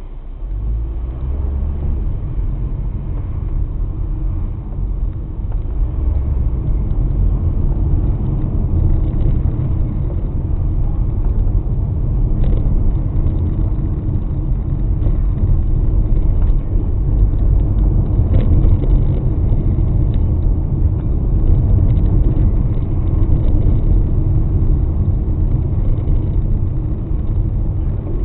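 Car driving, heard from inside the cabin: a low, steady rumble of road and engine noise that builds over the first couple of seconds as the car picks up speed.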